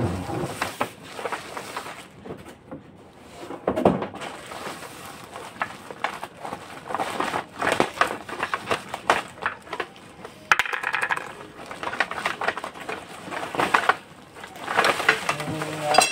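Clear plastic packaging bag crinkling and rustling as it is handled and pulled off the white plastic parts of a baby rocker, with a few sharper knocks of the plastic parts.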